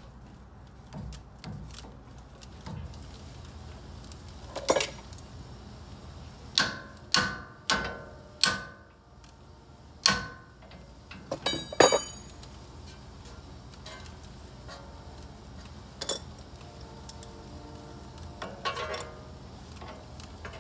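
Hand tools and metal parts clinking and knocking against a car's tie rod end and steering knuckle during a tie rod installation: about nine sharp, separate clinks, the loudest about twelve seconds in, some with a brief metallic ring.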